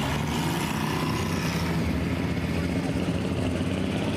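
Super stock pulling tractor's diesel engine running steadily at low revs, a loud rough rumble with a fast flutter.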